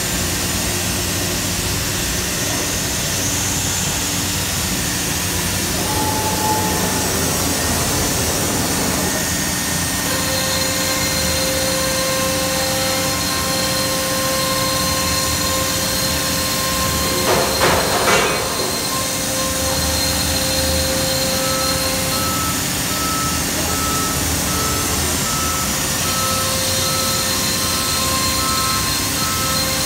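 Holz-Her Cosmec Conquest 510 CNC router running with its vacuum pumps: a steady mechanical hum with several steady whining tones joining about a third of the way in. A short loud burst of noise comes about halfway through, and a regular series of beeps sounds through the last third.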